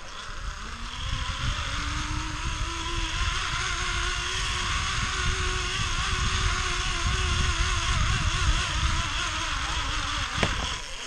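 Zip line trolley pulleys running along the steel cable with a wavering whine, over the low rush of wind on the microphone. A knock about ten and a half seconds in as the ride ends, after which the whine fades.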